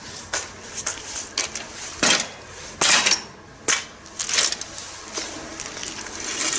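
Irregular light metallic clinks and knocks with a few short scraping rushes: hands handling a road bike's wheel and its parts during a tyre change.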